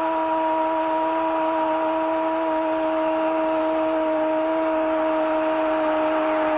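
A male football commentator's long goal cry, one drawn-out 'gol' held on a single steady note, over a cheering stadium crowd.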